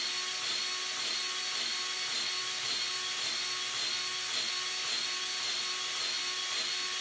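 Powered grease gun's motor running steadily with an even whine, pumping grease into the track tensioner cylinder of a CAT 304D CR mini excavator. The owner suspects the gun may be running out of grease.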